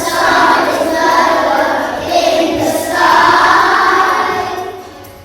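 A group of children singing together, two sung phrases with a short break between them, trailing off near the end.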